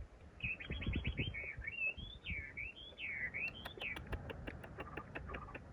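A songbird singing: a quick trill, then a string of swooping whistles that rise and fall, followed in the second half by a fast series of sharp ticks, about seven a second.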